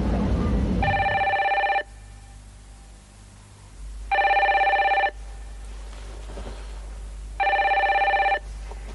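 Telephone ringing: three trilling rings of about a second each, some three seconds apart, going unanswered. Under the first ring, a steady rumble cuts off.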